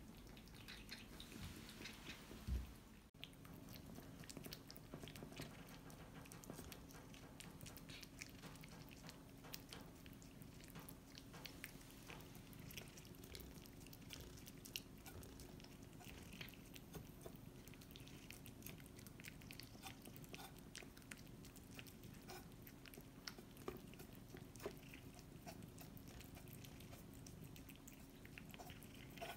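Cat licking and chewing soft wet cat food from a ceramic bowl: faint, quick wet clicks and smacks of the tongue and jaws, scattered through.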